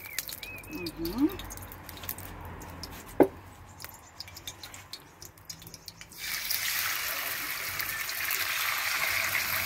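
Raw turkey breast strips dropped into hot olive oil in a wok and frying, with a loud, steady sizzle that starts suddenly about six seconds in. Before that the oil heats quietly, with small ticks and one sharp click.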